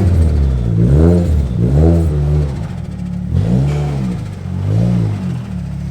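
Car engine revved in a series of blips, about five, each rising and then falling in pitch.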